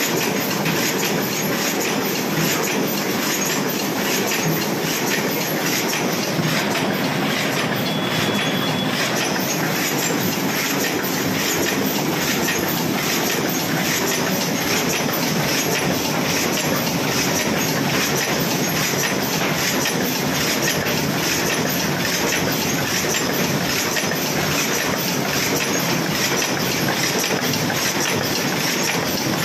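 Jain Industries H20 high-speed automatic paper cup making machine running, a loud, steady, fast mechanical clatter of many rapid clicks as its forming stations and rotating turret work.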